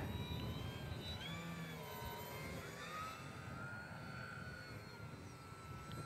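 Electric motor and propeller of an FMS 1700mm PA-18 Super Cub RC plane whining faintly overhead, the pitch sliding up and down as the throttle changes, with wind rumbling on the microphone.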